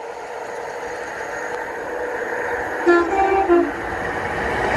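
Northern Class 150 Sprinter diesel multiple unit approaching, its running noise growing steadily louder. About three seconds in it sounds its two-tone horn in a short blast, a higher note then a lower one.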